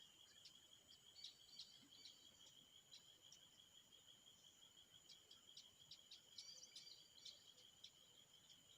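Near silence outdoors: a faint, steady high-pitched insect drone, with scattered faint short bird chirps.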